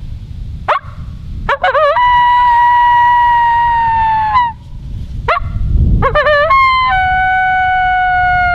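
Double Talkin' Dog double-reed howler call blown to imitate coyote howls: two long howls, each opening with a warbling rise and then held on a steady, slowly falling note, the second lower than the first. These are the soft locator howls used on first sitting down to announce a coyote in the area.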